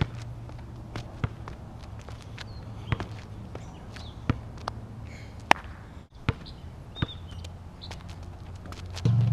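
Footbag freestyle: a footbag tapped and caught on the feet, with shoes scuffing and stepping on asphalt, heard as scattered sharp taps, the loudest about five and a half seconds in. A low steady hum runs underneath and grows louder near the end.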